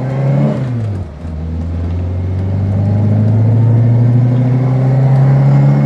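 The Reliant Kitten's 848cc all-alloy four-cylinder engine, heard from inside the cabin. The revs drop through a gear change about a second in, then climb steadily as the car accelerates in the next gear, and drop again at the very end.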